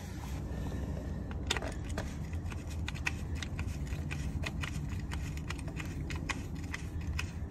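Hand ratchet clicking in short irregular runs as a Torx bolt is undone from the coolant-valve bracket, starting about a second and a half in, over a steady low rumble.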